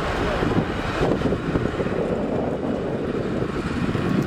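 Lackawanna passenger coaches rolling slowly past on the rails as the train backs up, a steady rumble of wheels and running gear, with wind buffeting the microphone.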